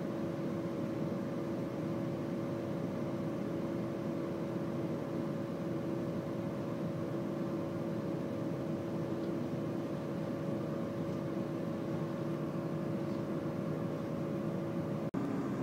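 Steady running noise inside a moving train, with a constant hum. The sound cuts out briefly near the end.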